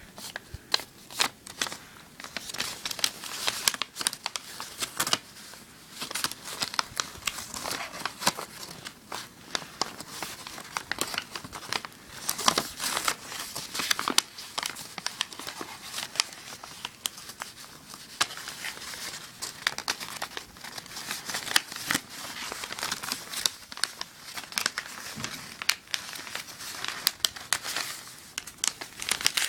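A sheet of origami paper being folded and creased by hand: continual crinkling and rustling, broken by many short, sharp crackles as folds are pressed flat.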